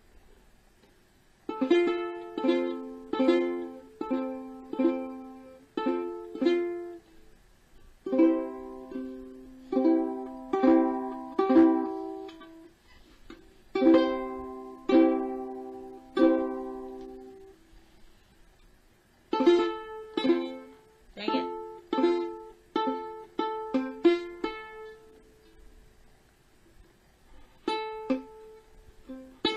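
Kala Ukadelic plastic-bodied soprano ukulele strummed slowly by a beginner practising the C and F chords: single strums about every two-thirds of a second, each left to ring, in runs of several with short gaps between while the fingers change chord shape.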